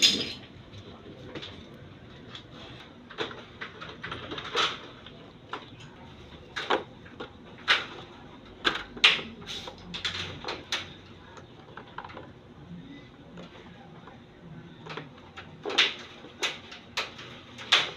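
Irregular sharp metallic clicks and knocks from hand work on an aluminium screen-door frame and its latch hardware. There are about a dozen, in quick runs around the middle and again near the end.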